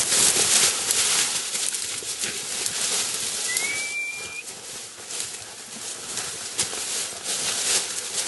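Rustling and crackling of dry grass and brush as a hunting hound noses and tugs at a wild boar, with one short thin rising whistle about three and a half seconds in.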